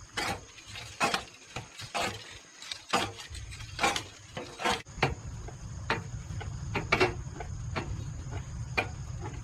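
Short, sharp scraping or striking strokes in an irregular series, roughly one a second, over a faint steady background hum with a thin high insect-like drone from about halfway through.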